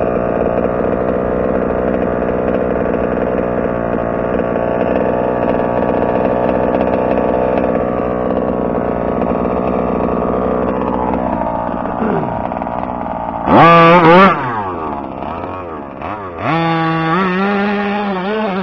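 Two-stroke gas engine of a Rovan Terminator 1/5-scale RC truck running steadily at low revs, then blipped once, hard, about thirteen seconds in, its pitch swinging up and down, the loudest moment. It drops back, then revs up again and holds a higher, steady note to the end as the truck drives off.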